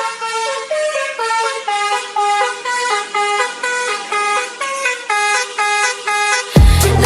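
Dance-track intro: a melody of short, honking car-horn-like notes stepping up and down in pitch. About six and a half seconds in, a heavy bass-drum beat comes in.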